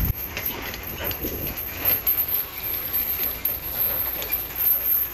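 Loaded trailer rolling slowly over a rough dirt road, with irregular knocks and rattles over a rough, uneven rolling noise.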